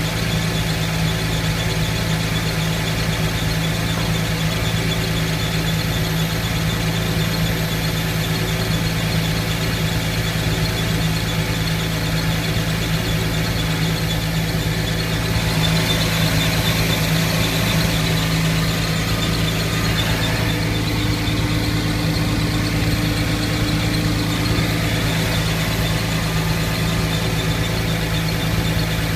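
Porsche 911 (997.1) flat-six engine running steadily, with a high squeak over the engine note. The sound gets a little louder about halfway through.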